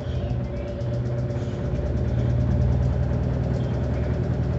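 Electrolux LAC12 top-loading washing machine running: a steady low motor hum with a fast, even ticking pulse, growing a little louder about a second in.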